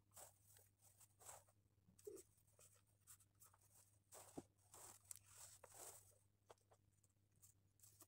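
Faint scratchy strokes of a pen on paper, a run of short strokes one after another, with a light sharp tap about four seconds in.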